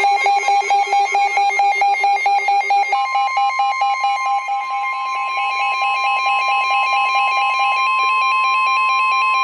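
A weather alert radio's rapidly pulsing electronic alarm, joined about three seconds in by NOAA Weather Radio's steady 1050 Hz warning alarm tone, the signal that announces an incoming warning after the SAME header bursts.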